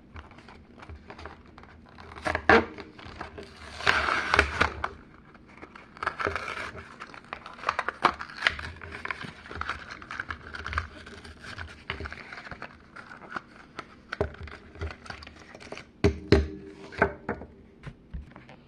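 A Hot Wheels blister-card package being opened by hand: plastic and cardboard crinkling, scraping and tearing, with many sharp clicks of handling and a louder stretch of rustling about four seconds in.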